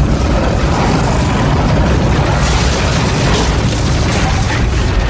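Loud cinematic sound effect for an animated logo: a dense, deep, booming rumble with rushing noise over it, held steady.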